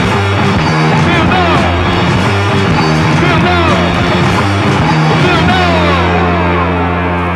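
Rock music with notes that slide in pitch over steady bass notes; about five and a half seconds in it changes to long held notes.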